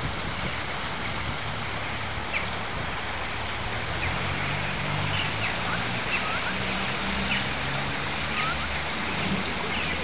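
Steady rush of a waterfall, an even hiss of falling water. From about four seconds in, people's voices talk faintly over it, with a few short, faint high chirps.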